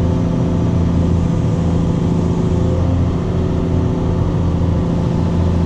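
Cat 320E excavator's diesel engine running at a steady speed, an even drone with no change in pitch.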